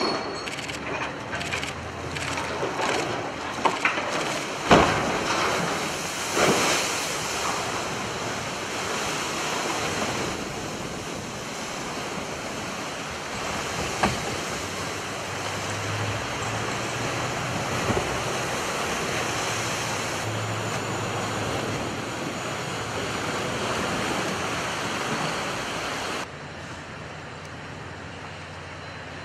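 Side launch of the cargo ship Arklow Venture: a run of sharp knocks as the hull goes off the launch ways, and a loud crash about five seconds in as it drops sideways into the water. After that comes some twenty seconds of displaced water rushing and splashing in waves, which cuts off suddenly to a quieter steady hiss near the end.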